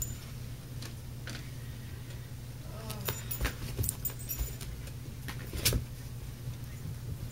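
Dog's collar tags jingling in short bursts as a dachshund jumps and scrambles about, with a sharp knock about five and a half seconds in. A steady low hum runs underneath.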